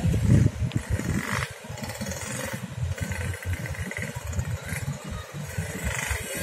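Many motorcycle engines running and pulling away as traffic streams across a railway level crossing.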